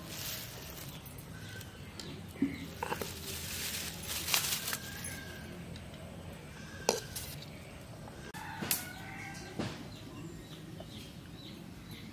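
Whole eggs being set by hand into an aluminium pot of water and potato pieces, with a few sharp knocks of egg or hand against the metal pot. Birds call a few times in the background.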